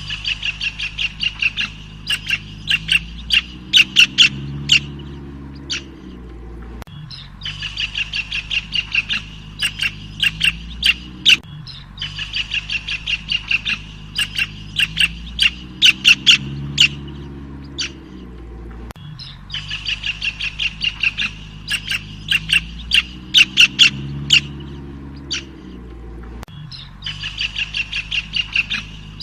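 A songbird singing the same song phrase again and again: each phrase is a run of rapid, sharp, high notes that grows louder, lasting about five seconds, with the phrase repeating roughly every seven seconds.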